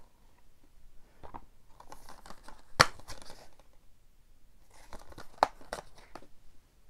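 Plastic Blu-ray case and its slipcover being handled: light rustling and crinkling with scattered clicks and taps, the sharpest click nearly three seconds in and another burst of clicks about five and a half seconds in.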